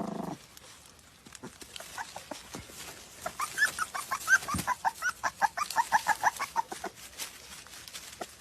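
Rapid series of short, high-pitched animal calls, several a second, starting about a second and a half in and growing louder and quicker through the middle before easing off near the end.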